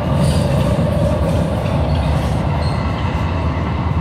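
Sacramento light rail train running at speed, heard from inside the car: a steady rumble of wheels on the track, with a couple of brief high squeaks.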